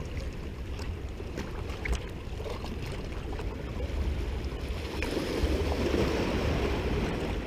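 Small sea waves lapping and splashing against rocks, with wind rumbling on the microphone; a louder wash of water swells about five seconds in.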